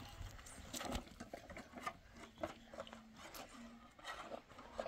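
Faint rubbing and scraping with a few scattered light knocks, the sound of things being handled on the ground.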